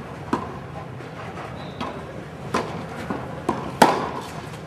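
Tennis balls being hit and bouncing on the court: a string of sharp, irregularly spaced knocks, the loudest about four seconds in, over steady background noise.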